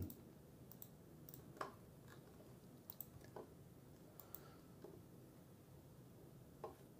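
Near silence with a handful of faint, irregular computer mouse clicks.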